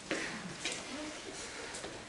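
Faint, indistinct speech in a quiet room, with a few short hissing sounds.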